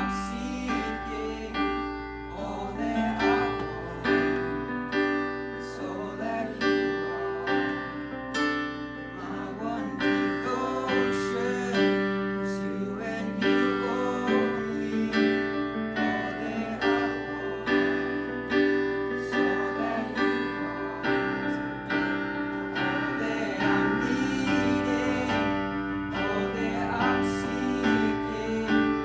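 Music: a piano playing held chords and notes, with a voice singing over it.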